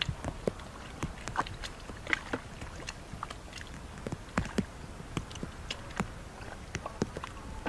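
Irregular wet squelches and splashes of hands and bare feet working through shallow mud and water, a scattered string of short sloshes and smacks.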